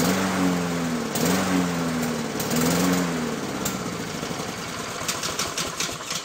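Lawn-Boy push mower's small engine surging: its pitch rises and falls about once every second and a quarter, then it fades out about four seconds in, with a few clicks near the end. The surging is what the owner calls typically a problem with a dirty carburetor.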